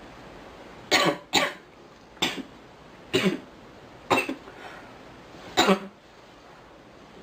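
A girl coughing: six dry coughs spread over about five seconds, the first two close together.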